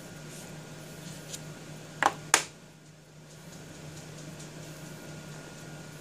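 Two sharp clicks in quick succession about two seconds in, as small magnets snap down onto the metal plate of a stamp-positioning tool to hold a sheet of cardstock. A steady low hum runs underneath.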